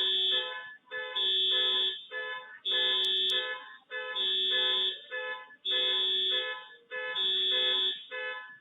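A repeating electronic tone pattern, a longer held chord followed by a few short beeps, cycling about once every second and a quarter.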